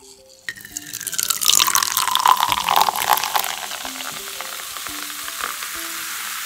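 Welch's sparkling grape soda poured from a can into a glass measuring cup: a loud splashing pour starts about half a second in, then eases into a steady fizzing hiss of the carbonated soda's bubbles as the cup fills.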